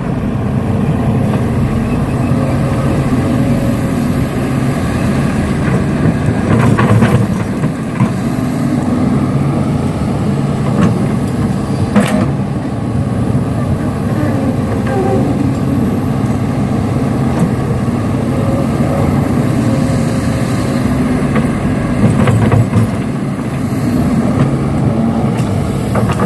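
Heavy vehicle engine running steadily with a low drone, with a few sharp clicks partway through.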